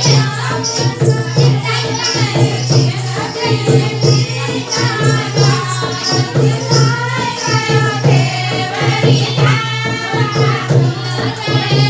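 A dehati folk song, sung over a steady beat of percussion with jingles.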